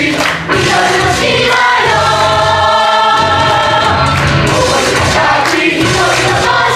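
Stage musical ensemble singing a chorus number together over instrumental backing, with long held notes.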